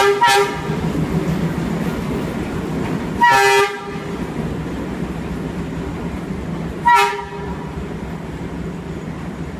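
Horn of a Czech-built D12E diesel-electric locomotive sounding three short toots: one at the start, a longer half-second one about three seconds in, and a brief one about seven seconds in. The locomotive's diesel engine runs steadily underneath.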